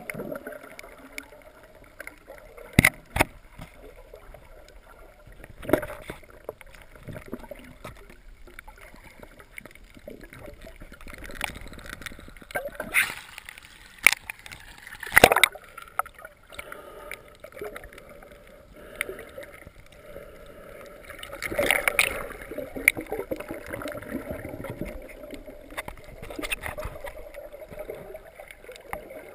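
Underwater sound through a camera's waterproof housing: a muffled wash of water with scattered sharp clicks and knocks. About halfway through, the camera breaks the surface and water splashes and sloshes around it for a few seconds before it goes under again.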